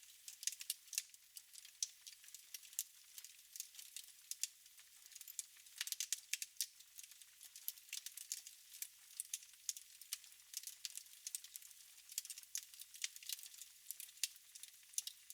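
Wood fire in a fireplace crackling: irregular sharp snaps and pops, several a second, over a faint hiss.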